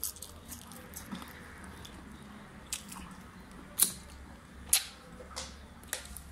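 Close-miked eating sounds of a chicken shawarma wrap being chewed: soft wet chewing with a handful of sharp lip and finger-licking smacks, the loudest about four and five seconds in.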